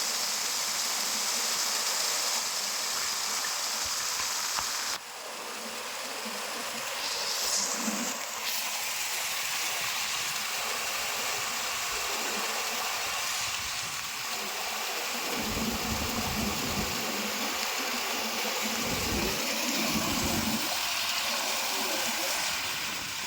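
Waterfall, water rushing and splashing in a steady hiss. About five seconds in the sound drops suddenly and then carries on, and low rumbles come and go in the second half.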